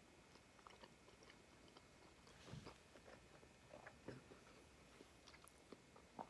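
Faint chewing of a bite of sauce-dipped stuffed-crust pizza, with small wet mouth clicks and a slightly louder bite or crunch about two and a half seconds in.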